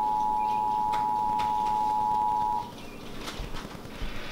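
Emergency Alert System attention signal: a steady two-tone alert beep that cuts off sharply about two and a half seconds in, announcing a National Weather Service severe thunderstorm warning. A few faint clicks and low thumps follow.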